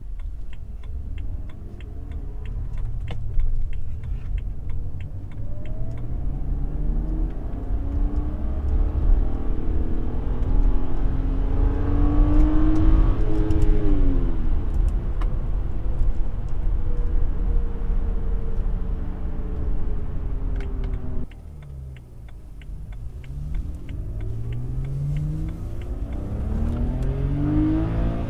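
BMW N52 straight-six accelerating hard on the stock exhaust: the engine note climbs steadily for a long stretch, drops sharply at an upshift, then holds. After a sudden cut about three-quarters of the way in, the same engine with the BMW Performance Exhaust fitted pulls through quick repeated climbs and drops in pitch.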